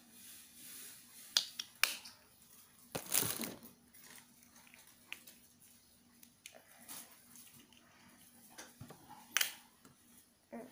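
Handling noise of art supplies and their plastic packaging: a few sharp clicks and taps, with a longer crinkling rustle about three seconds in.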